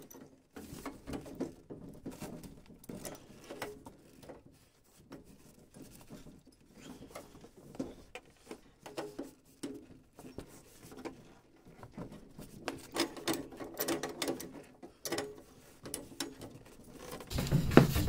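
Pipe wrench working a threaded drain pipe loose from a boiler's brass pressure relief valve: a scatter of small metal clicks, taps and scrapes, growing louder near the end.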